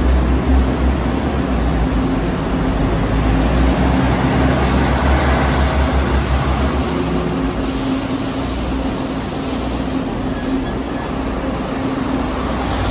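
Taiwan Railways DR1000-series diesel multiple unit moving slowly past along the platform, its diesel engine giving a steady low hum. A high-pitched hiss and squeal join in about halfway through.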